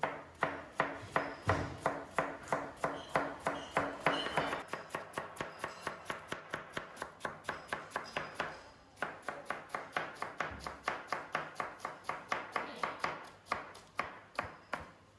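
Knife shredding red cabbage on a cutting board: quick, even strokes, a few a second, each a sharp tap of the blade through the cabbage onto the board, with a short break about nine seconds in.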